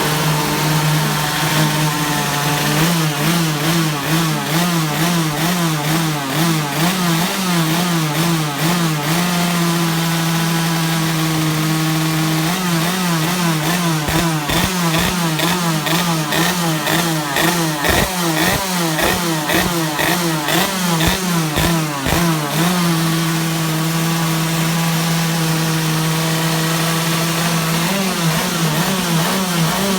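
Two-stroke kart engine warming up on the stand. It is held at a steady fast idle for several seconds at a time, and in between it is blipped rapidly on the throttle, so the revs waver quickly up and down, with sharp crackles during the middle stretch of blipping.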